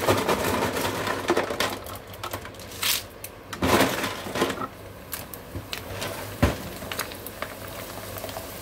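Dried chips frying in hot oil in a steel kadhai, with a steady sizzle full of small crackles. Louder clatters come about three seconds in, just before four seconds and at about six and a half seconds, as more brittle chips drop into the oil.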